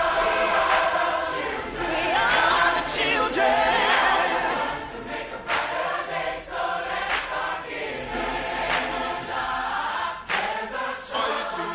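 Choir singing over a pop backing track with a steady beat.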